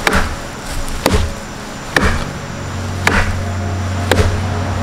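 A blade chopping into a fallen log, five sharp strokes about a second apart.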